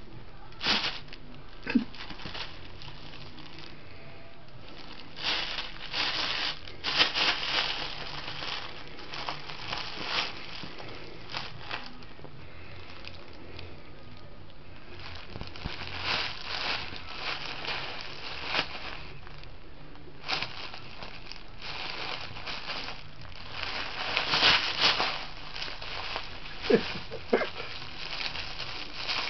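A bag of valerian root crinkling and rustling in repeated bursts as a kitten rolls on it, bites it and kicks at it.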